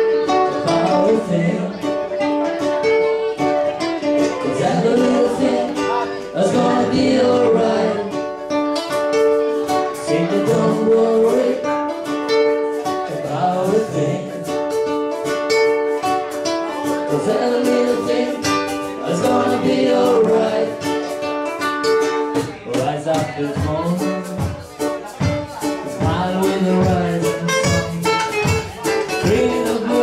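Live ukulele band: strummed ukuleles, ukulele bass and foot drum playing a steady upbeat song, with a man singing.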